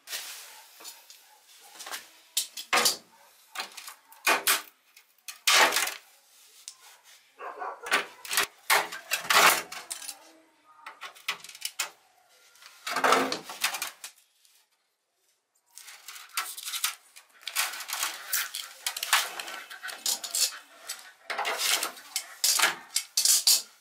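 Metal pieces clattering and knocking as they are handled and worked, in irregular clusters, with a short break of silence past the middle.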